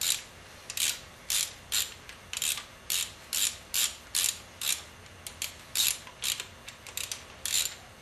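Hand ratchet clicking in short back-and-forth strokes, about two a second, as the camshaft sprocket bolts are tightened a little at a time to draw the gear on evenly.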